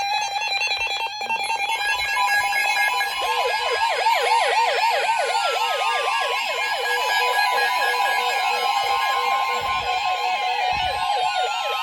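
Weather radios sounding their alert for a tornado warning: a steady alarm tone near 1 kHz, joined about three seconds in by a fast warbling siren and slow falling sweeps. The alarms sound just before the broadcast voice message begins.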